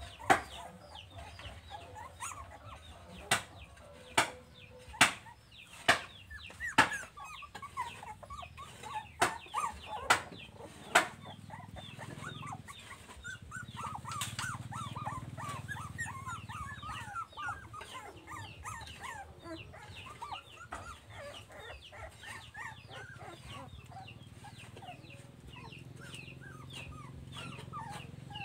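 Domestic chickens clucking with many quick high chirps. About a dozen sharp knocks fall over the first eleven seconds.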